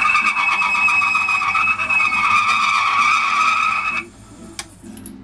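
An engine valve spun by a power tool while its head's outer edge is ground on a wheel: a steady high-pitched squeal that stops suddenly about four seconds in, followed by a few light clicks.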